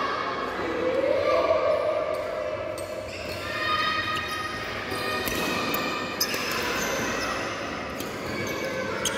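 Badminton rally: sharp racket hits on the shuttlecock, several times, with people's voices in the background.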